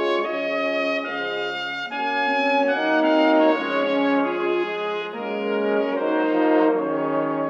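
Brass-led orchestral music playing sustained chords and a melody, the notes changing every half second or so.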